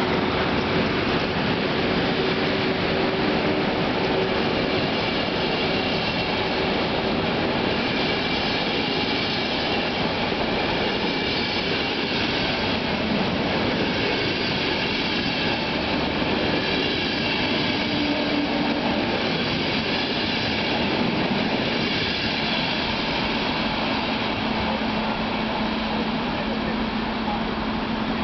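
Passenger coaches of a departing locomotive-hauled train rolling past on steel wheels: a steady rumble of wheels on rail that eases slightly as the train pulls away.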